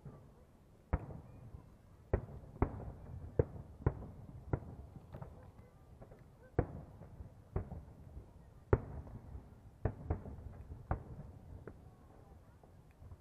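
Aerial fireworks shells bursting: a string of about a dozen sharp bangs at irregular intervals over a low continuous rumble.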